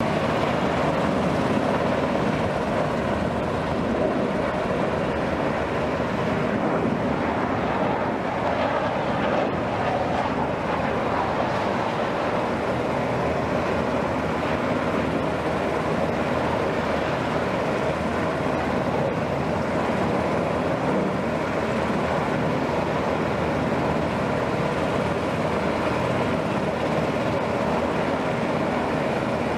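Steady jet noise from Blue Angels F/A-18 Hornets flying around overhead, loud and even.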